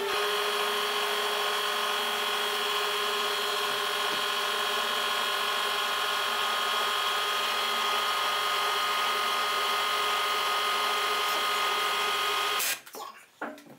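A rope-clutch load-test rig running with a steady mechanical whine as it pulls tension onto a braided line gripped in a clutch. It cuts off sharply near the end.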